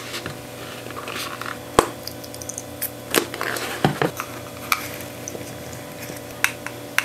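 Water squirted from a plastic squeeze bottle into a hollow plastic toy spider's body and poured out into a small plastic measuring cup, with clicks and taps of the plastic being handled. About half a dozen sharp clicks, the loudest a little under two seconds in.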